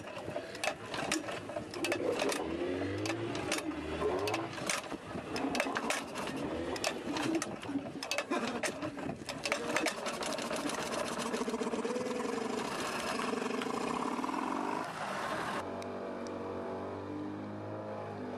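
Small outboard motor with its cover off, clattering and sputtering as it is pull-started by its rope, with irregular sharp knocks, then running less evenly. About fifteen seconds in the sound changes suddenly to a steady engine drone.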